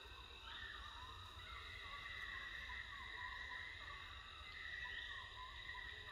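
Insects buzzing in a steady chorus, high-pitched and swelling slightly, over a low rumble.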